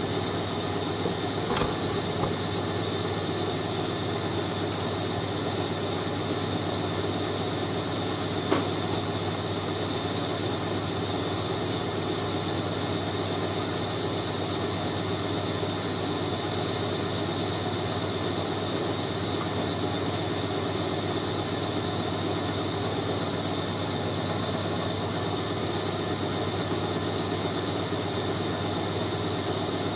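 Hoover A3060 Electronic 1100 washing machine running mid-cycle with a steady motor hum and hiss. A single small click comes about eight and a half seconds in.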